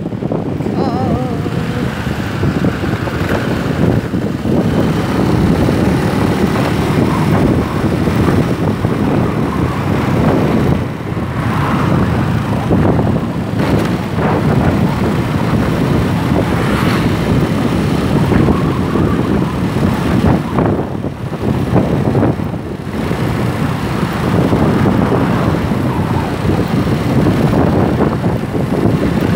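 Wind buffeting the phone's microphone over the running engine and road noise of a motor scooter being ridden along a road. The noise is loud and steady.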